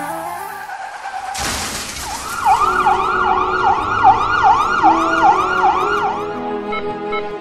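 A sudden burst of noise about a second and a half in, then an emergency siren wailing rapidly up and down, about two and a half sweeps a second for some four seconds, over background music.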